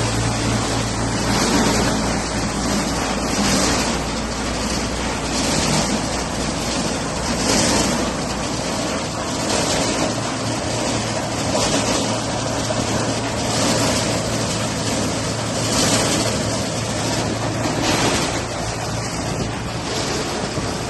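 Paver block making machine running: a continuous mechanical noise over a low steady hum, with a brighter surge about every two seconds. The low hum fades about halfway through.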